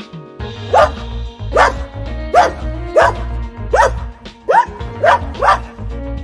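A dog barking about eight times in short, sharp barks, under background music.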